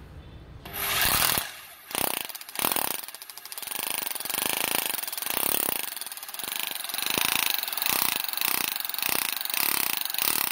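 Concrete hammer drill in hammer mode driving a nail-driving head, a fast rattling hammering. It starts about a second in with a few short bursts, then runs more steadily with the loudness surging and easing as it is pressed on and off.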